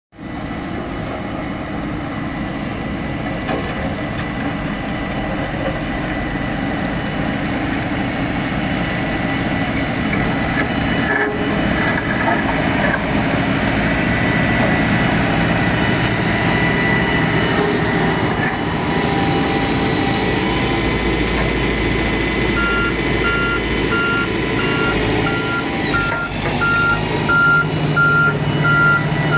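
A bulldozer's diesel engine runs steadily under working load, growing louder over the first half. About three-quarters of the way through, a reversing alarm starts beeping about twice a second as the machine backs up.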